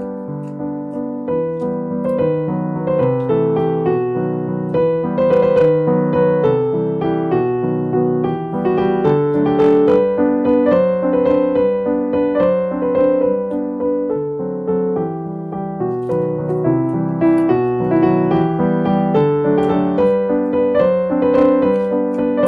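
Piano music with a melody of short notes over a lower accompaniment.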